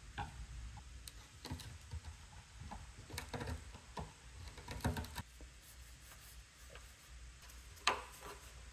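Irregular light taps and clicks of workshop handling, several bunched together in the middle and one sharper knock near the end.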